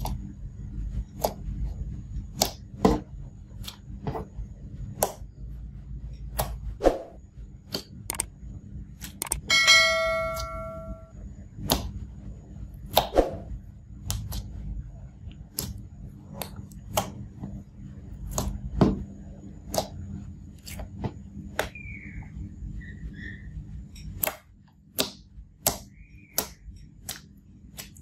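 Clear slime with glitter mixed in being squeezed and kneaded by hand, giving a run of sharp wet clicks and pops about once or twice a second over a low squishing rumble. About ten seconds in, a bell-like ding rings for about a second, the loudest sound here.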